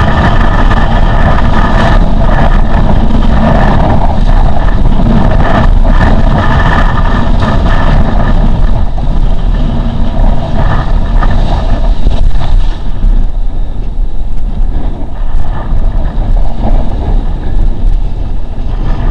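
Strong wind buffeting the microphone of an action camera mounted on a windsurf boom, mixed with the rush and splash of the board planing through choppy water. It is loud and unbroken, turning choppier in the last third.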